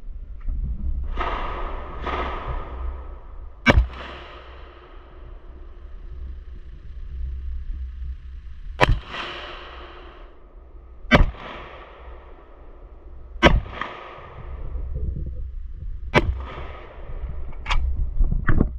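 Single gunshots on a shooting range, about seven of them spaced one to five seconds apart, each followed by a fading echo, over a steady low rumble.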